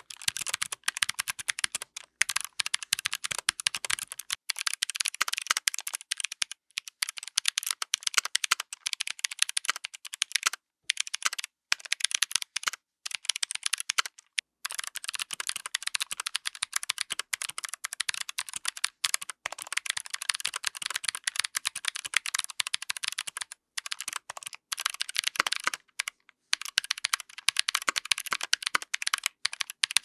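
Fast, continuous typing on a 60% mechanical keyboard with GMK Pulse keycaps. It starts on a POM plate with Kailh Speed Bronze switches and changes to an FR4 plate build by the middle. The typing breaks off briefly a few times, and from about halfway the keystrokes sound deeper.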